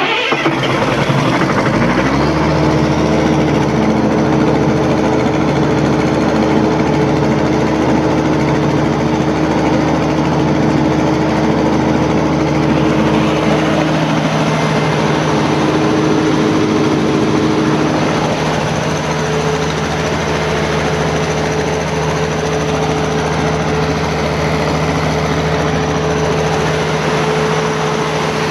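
Perkins diesel engine of a 275 kVA generator set, just started, running up to speed over the first two seconds and then running steadily at a constant pitch.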